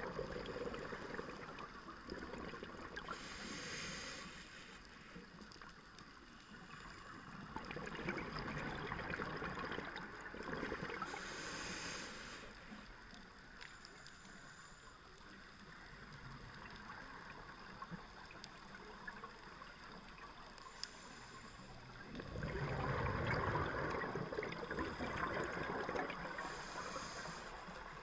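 Scuba diver breathing through a regulator underwater: slow swells of exhaled bubbles rumbling and gurgling, the loudest about three-quarters of the way through, with short high hisses of inhalation between them.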